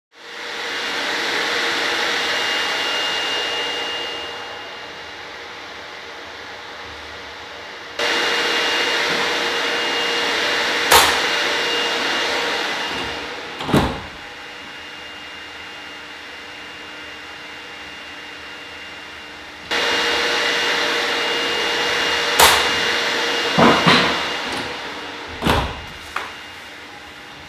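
Steady static-like test noise from a loudspeaker heard through a doorway, loud while the door stands open and dropping sharply each time the door is shut: a plain sliding door slid closed without a bang, then a plain hinged door shut with a click and a thud, then a hinged door fitted with a bottom seal shut with a click and several knocks. The quieter level behind each shut door is the measure of how well that door blocks sound.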